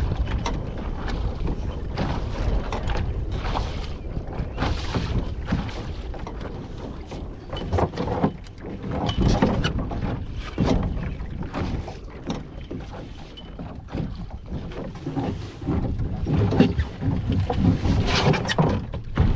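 Wind rumbling on the microphone aboard a sailboat under way, with a noisy wash and irregular knocks and clatters.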